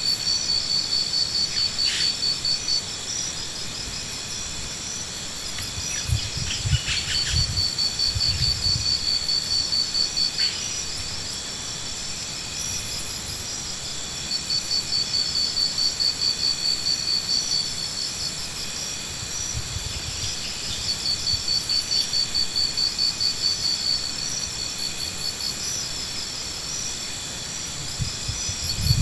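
Insects singing: a high, pulsed trill in bursts of a few seconds that recur every several seconds, over a steady high insect drone. A few dull low thumps come about six to nine seconds in and again near the end.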